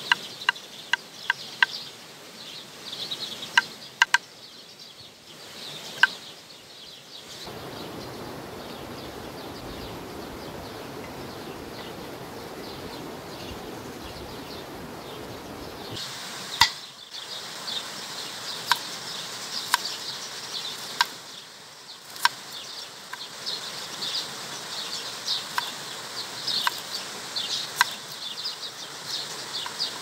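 Serrated kitchen knife chopping on a wooden cutting board, first through garlic cloves and later through an onion, each stroke a sharp tap of the blade on the board. The taps come in scattered groups, stop for several seconds in the middle during a stretch of steady rushing noise, and grow more frequent near the end. Insects or birds chirp steadily in the background.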